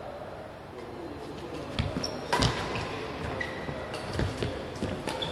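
Badminton rally: several sharp hits of rackets on a shuttlecock, the loudest about two and a half seconds in, with short squeaks of players' shoes on the court mat.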